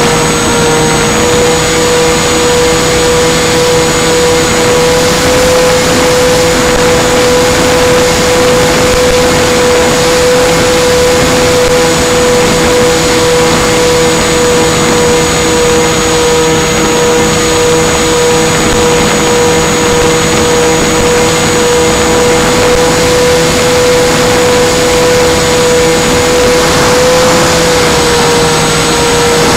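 Electric motors and propellers of a Twin Dream twin-motor RC plane running at a steady cruise: a loud, constant whine that holds nearly one pitch, with rushing air over the onboard camera.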